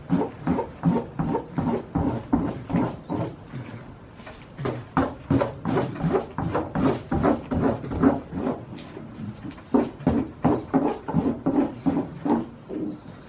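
Goat sounds close by: a rapid rhythmic series of pulses, about four a second, in three runs with short breaks.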